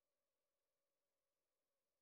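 Near silence: no audible sound.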